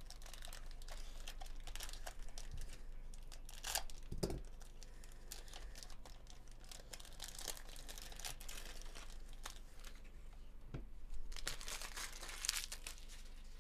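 Foil wrapper of a 2024 Bowman Chrome baseball card pack crinkling and tearing as it is opened by hand, in irregular crackles with louder bursts about four seconds in and near the end.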